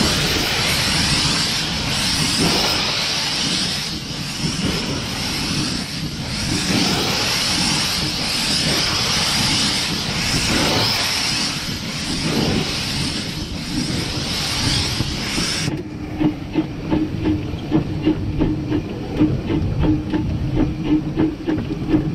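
Steam hissing loudly from the 15-inch-gauge steam locomotive River Irt, cutting off suddenly about three-quarters of the way through; a quick, regular beat with a steady low hum follows.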